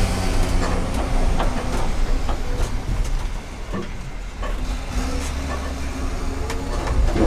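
Launch tractor's engine running steadily while scattered metallic clanks and knocks sound from the hitch and boat trailer.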